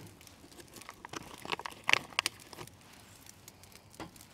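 Maple smoking-wood bricks dropped one after another onto charcoal in a barrel cooker: scattered light knocks and clatters with some rustling, the loudest about two seconds in.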